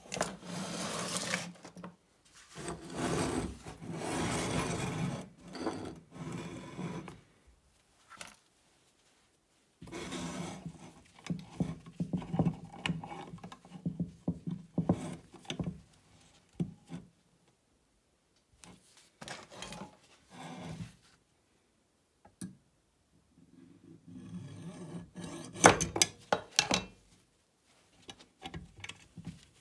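A brass 9 mm shell case being rubbed back and forth on an abrasive stone block, in several scraping bursts, to grind it shorter. Mixed in are sharp clicks and knocks of the case and the metal drill-press vise being handled, loudest near the end.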